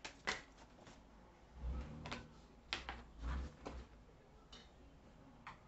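Faint handling noises: a few scattered short clicks and two soft low thumps, spread over several seconds.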